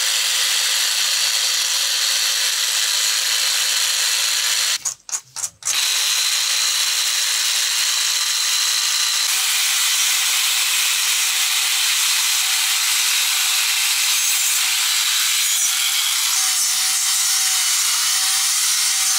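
Small electric angle grinder running steadily with an abrasive disc grinding and sanding a coconut shell half. It breaks off briefly about five seconds in, and the grinding sound changes about nine seconds in.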